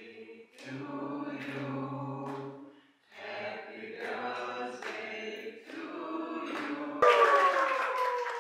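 A group of voices singing or chanting together in long held notes, in phrases of a second or two with short breaks between them. About seven seconds in, the sound jumps suddenly louder and slides down in pitch.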